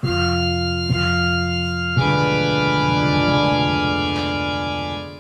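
Organ music: a sustained chord, then a second held chord from about two seconds in that fades out near the end.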